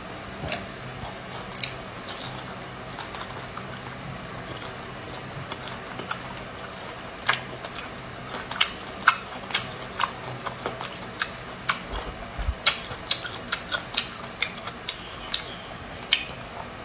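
Close-miked wet chewing, sucking and lip-smacking of a person eating a whole cooked octopus: sharp wet clicks, sparse at first, then coming thick and fast through the second half, over a low steady hum.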